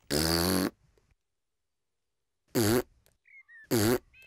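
A cartoon child's voice blowing a raspberry with the tongue stuck out, about half a second long at the start, then two shorter blown sounds about 2.5 and 3.7 seconds in.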